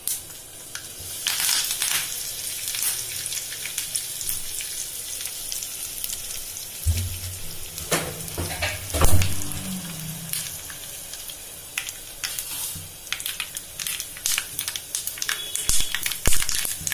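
Curry leaves and mustard seeds sizzling and crackling in hot oil in a small steel tadka pan, a steady hiss dotted with sharp pops. A couple of louder knocks come around the middle.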